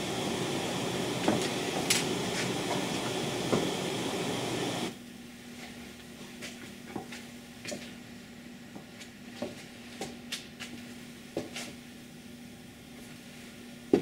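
A steady hiss cuts off suddenly about five seconds in, leaving a faint low hum. Scattered light clicks and knocks come from a person handling cables and equipment while the capacitor packs are being reconnected.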